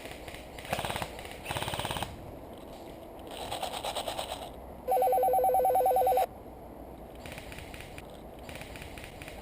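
Airsoft electric guns firing several short full-auto bursts, each a fast even rattle; the loudest, about five seconds in, lasts about a second and a half and has a buzzing tone.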